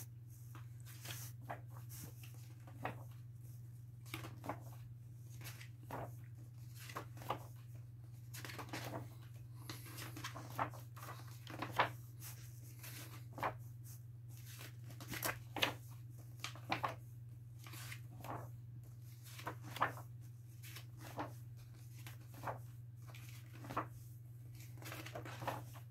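Pages of a thick encyclopedia being turned by hand: short, irregular paper rustles and flicks, over a steady low hum.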